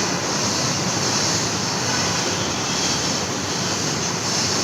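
Steady background road-traffic noise, an even hiss and rumble with no distinct events.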